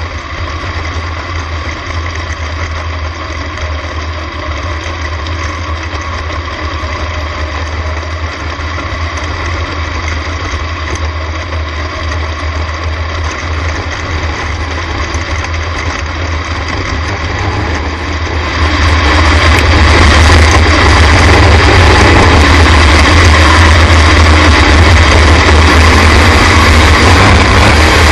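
Sprint car's V8 engine heard from the cockpit, running steadily, then about two-thirds of the way through getting much louder as the throttle is opened and the car speeds up.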